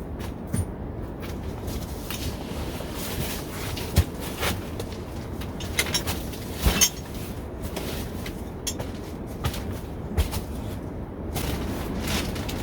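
Scattered knocks and clicks over a steady background hiss, the sharpest about four seconds and seven seconds in.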